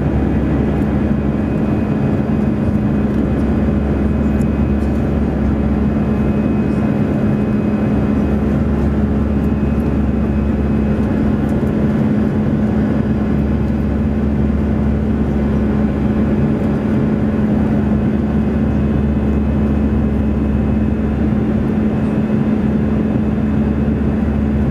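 Airbus A319 cabin noise during the climb: the jet engines and airflow make a steady, loud drone, a constant hum over a low rumble, heard from inside the cabin beside the wing.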